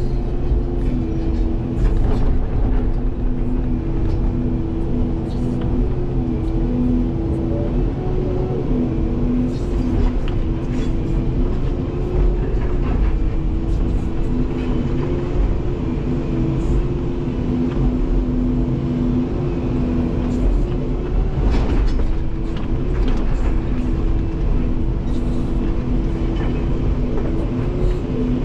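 Volvo 235EL excavator's diesel engine and hydraulics running under load, heard from inside the cab, with a steady whine that wavers in pitch as the boom and bucket are worked. A few sharp knocks of rock come through now and then.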